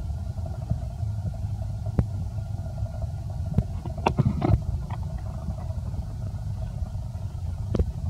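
Steady low rumble with a faint steady hum over it, broken by a few short clicks and squeaks, the busiest cluster about four seconds in.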